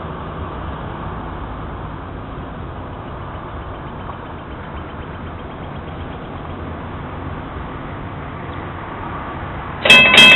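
Steady low hum of a car idling at a railroad grade crossing. About ten seconds in, the crossing's warning bell starts ringing loudly with a fast, steady ding.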